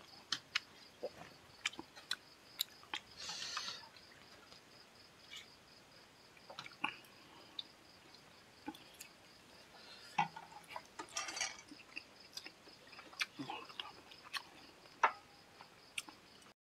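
Close-miked eating sounds of a person eating curry and rice by hand: scattered wet smacks and chewing clicks, with two short louder wet noises, about 3 seconds in and about 11 seconds in.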